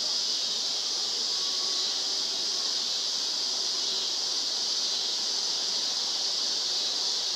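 Steady evening chorus of crickets and other insects: a dense, unbroken high-pitched hiss that doesn't change.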